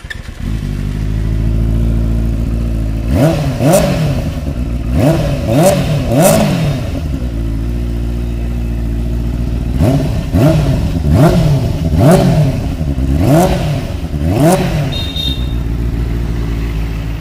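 Benelli 600i's 600 cc inline-four engine idling through its stock under-seat twin exhaust. It is revved in two sets of quick throttle blips, about five a few seconds in and six or seven more from about ten seconds, each dropping straight back to idle.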